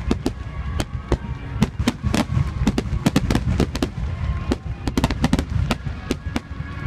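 Massed aerial fireworks barrage: shells bursting in quick succession, several bangs a second over a continuous low rumble.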